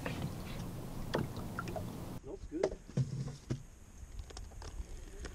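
Water lapping against the hull of a small skiff drifting with its motor off. A few sharp knocks and clicks of gear against the boat come in the second half.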